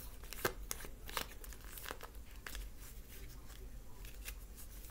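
Tarot or oracle cards being shuffled and handled: a run of soft, irregular card clicks and flicks that thin out after about three seconds.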